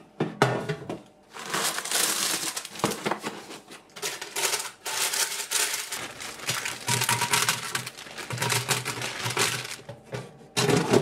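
Crinkling of a plastic bag of frozen hash brown bites and a paper air fryer liner, with the frozen bites tumbling into the paper-lined air fryer basket in irregular rattling bursts.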